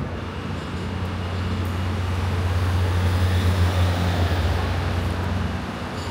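Street traffic: a vehicle's engine hum, low and steady in pitch, swelling to its loudest a few seconds in and then easing off as it passes.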